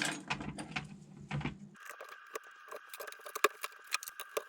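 Small plastic RC body parts clicking and rattling as they are handled and sorted by hand, in many quick sharp ticks. A faint steady high tone comes in about two seconds in.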